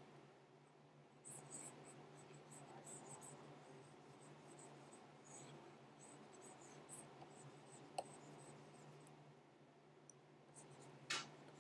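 Stylus pen scratching across a drawing tablet in short, intermittent sketching strokes, with a sharp click about eight seconds in and a louder tap near the end, over a faint low hum.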